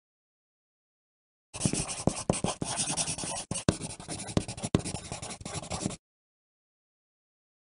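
Pencil writing on paper: rapid scratchy strokes with sharp taps and jabs of the lead, uneven in loudness. It starts abruptly about a second and a half in and cuts off abruptly about six seconds in.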